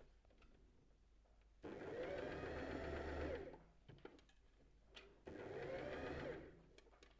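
Domestic sewing machine stitching a straight stitch through knit fabric and elastic in two short runs, about two seconds and then about a second, its motor speeding up and slowing down each time. A few light clicks come between and after the runs.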